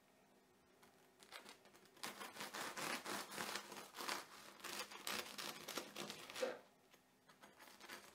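Bread knife sawing through the crisp rice-flour crust of a tiger bread loaf: a run of crackling crunches with each stroke, starting about a second in and stopping well before the end. The crackle shows the crust is very crisp.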